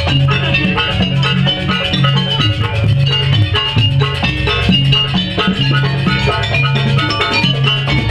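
Live Banyuwangi barong gamelan ensemble playing a steady, driving accompaniment: drums and struck metal gong-chimes and metallophones over a repeating low pulse.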